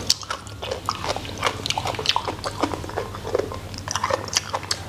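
A person chewing a mouthful of rice with spicy hot-pot broth, close to the microphone: wet, irregular mouth clicks and soft chewing.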